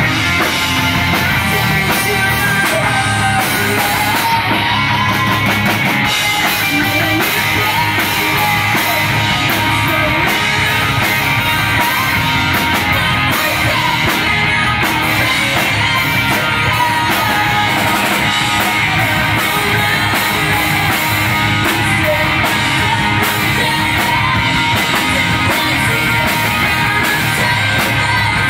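A rock band playing live, loud and unbroken: two electric guitars, an electric bass and a drum kit.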